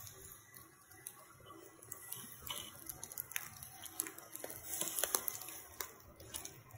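Chicken skewers sizzling over wood embers, with scattered pops and crackles from the fire.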